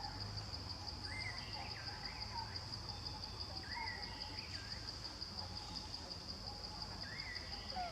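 Steady, high-pitched insect drone, with short rising-and-falling whistled chirps coming in about five times over it.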